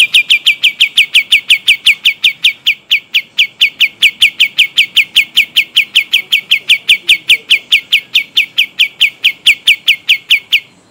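Kapas tembak songbird singing one long rolling trill ('ngeroll panjang'): the same quick downslurred whistle repeated about five times a second without a break, stopping shortly before the end.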